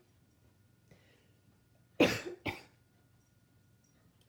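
A person coughing twice in quick succession, about two seconds in.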